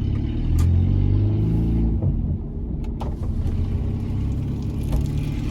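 Peugeot 206 1.4 8v four-cylinder engine running through a straight-pipe exhaust with no catalytic converter, its low exhaust note rising and falling a little as it is driven.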